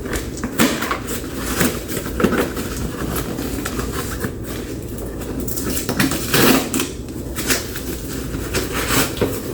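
Rummaging through a furniture shipping box for couch parts: irregular rustling, with scattered knocks and clicks of packaging and parts being moved.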